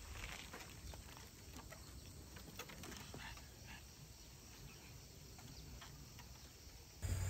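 Quiet outdoor background with scattered light ticks and taps, fitting small dogs' claws on a wooden deck as they move around. A louder low hum cuts in suddenly at the very end.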